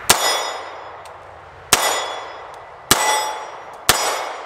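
Star BM9 9mm pistol firing four shots, about a second apart, each crack trailing off in a ringing echo.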